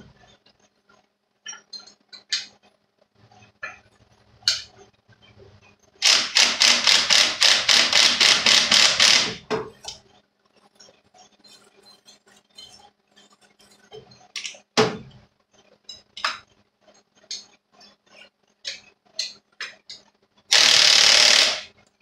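Cordless drill spinning the arbor nut down on a bench grinder's wire wheel, running for about three seconds with a rapid, even clicking, and again briefly near the end. Between the runs come scattered light clinks of metal tools handled on a steel bench top.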